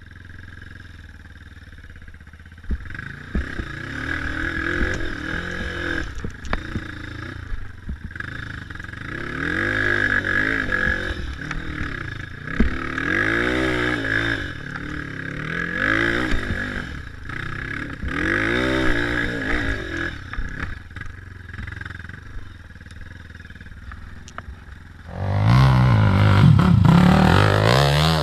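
Dirt bike engine heard from the rider's onboard camera, revving up and down again and again under load as it climbs a steep dirt slope, with occasional knocks. About 25 seconds in it gives way to a louder, closer motorcycle engine revving.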